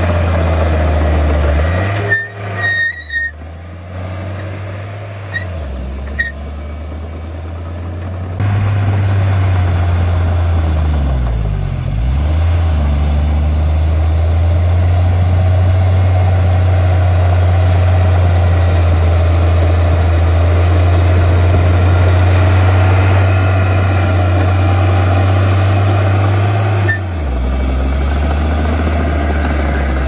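Komatsu D51P bulldozer's diesel engine running under load while pushing mud, a steady low drone. It drops out briefly about two seconds in, and its pitch dips and comes back up about twelve seconds in.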